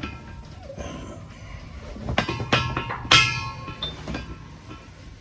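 Steel parts of a round baler clanking as they are worked on: a few sharp metal knocks, the loudest about three seconds in, which rings on briefly with a bell-like tone.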